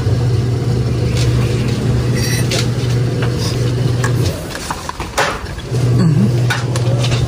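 A steady low engine-like hum, which drops out a little after four seconds and comes back near the end, with a few sharp clicks; the sharpest click comes about five seconds in.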